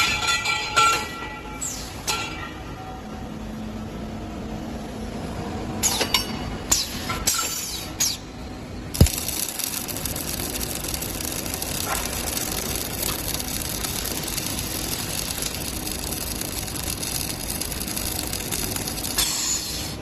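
Automatic steel prop welding machine at work. Steel tubes clank and ring as they are loaded during the first eight seconds or so, and there is a sharp knock about nine seconds in. A steady hiss of the automatic weld then runs for about ten seconds, and metal clanks come again near the end.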